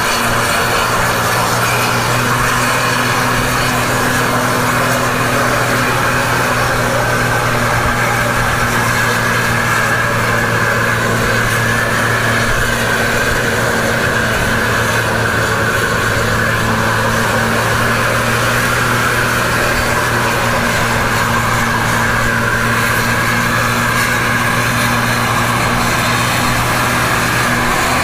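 Road vehicle engines running at a steady, unchanging pitch as a tour coach climbs a steep hill road under load.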